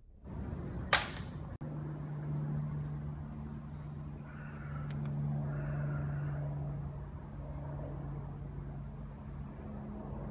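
A steady low engine hum holding two low tones, with a single sharp click about a second in.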